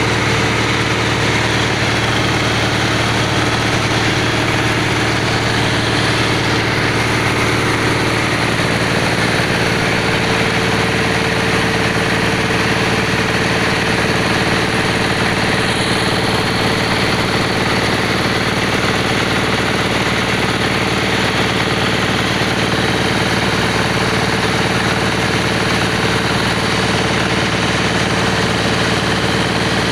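Engine of a bore-well drilling machine running steadily under load, its tone shifting slightly about eight seconds in.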